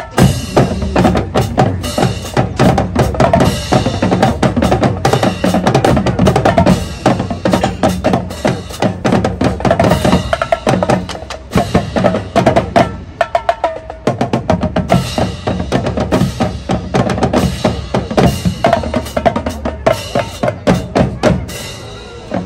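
Bicycle show band playing: snare and bass drums drive a busy, rhythmic beat while sousaphones and other brass hold notes underneath. The music comes in sharply and eases off briefly a couple of times around the middle.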